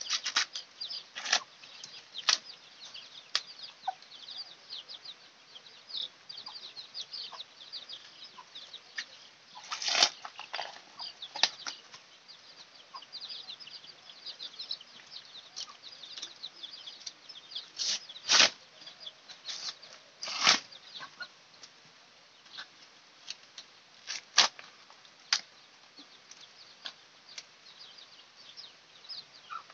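Green husks being torn and peeled off fresh ears of corn by hand: sharp ripping strokes every few seconds between quieter rustling.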